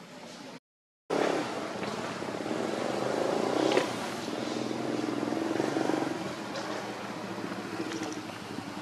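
A motor vehicle engine running nearby, swelling in the middle and easing off toward the end. The sound cuts out completely for about half a second near the start.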